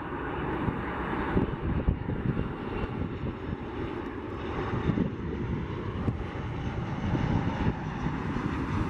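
Jet engines of a Boeing 737 airliner at approach power as it passes low on final with its landing gear down: a steady jet rumble that swells slightly toward the end.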